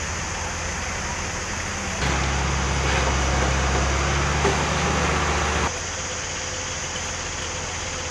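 Mobile crane's diesel engine running, stepping up to a louder, higher speed about two seconds in and dropping back near six seconds, over a steady hiss of site noise.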